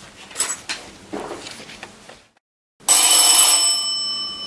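A bell rings out suddenly about three seconds in: several high, steady tones over a rush of noise that fade away. Before it there are faint clicks and rustles, then a brief silence.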